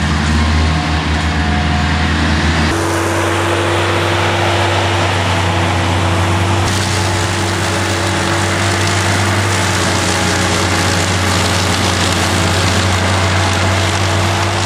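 Avant compact loader's engine running steadily while its front-mounted Lawn Mower 1500 deck cuts grass: a steady engine hum with a steady whine over it. The sound shifts abruptly about three seconds in and again about seven seconds in.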